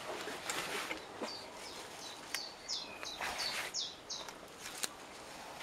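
Plants rustling, with a few sharp snaps, as wild garlic leaves are picked by hand. A small bird sings a quick run of short high notes in the middle.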